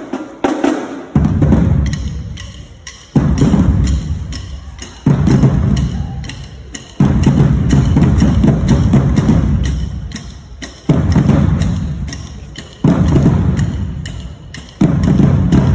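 Marching band drumline playing loudly: a steady stream of drum strokes with a heavy low bass-drum accent about every two seconds.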